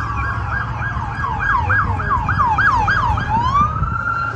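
Emergency vehicle siren in fast yelp mode, a falling whoop repeated about four times a second, switching about three seconds in to a slow rising wail that holds high. A low traffic rumble runs underneath.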